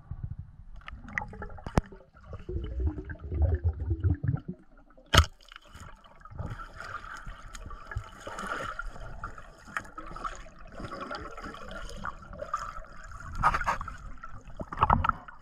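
Water sounds heard on an underwater camera while swimming: bubbling, gurgling and water rushing past, with one sharp click about five seconds in.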